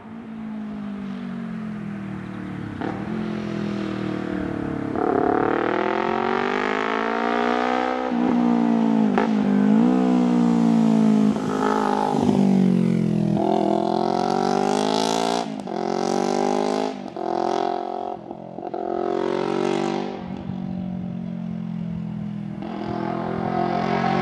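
2015 Yamaha YZF-R3's 321 cc parallel twin on a full Akrapovic titanium exhaust without dB killer, revving hard through the gears as the bike passes. The engine pitch climbs and drops back again and again with the gear changes, loudest in the middle, with several short throttle cuts near the end.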